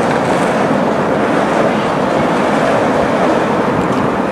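Yellow track maintenance machine running steadily along the rails as it approaches: an even engine and rolling noise.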